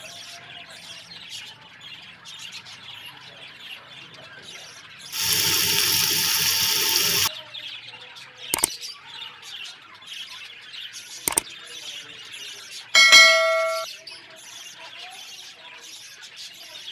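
Faint bird chirping throughout, broken by a loud steady hiss lasting about two seconds, two sharp clicks, and a loud ringing squeal that fades over about a second.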